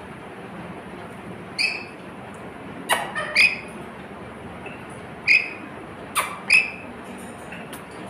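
A pet lory giving about five short, high-pitched chirps spaced a second or so apart, with two sharp clicks among them.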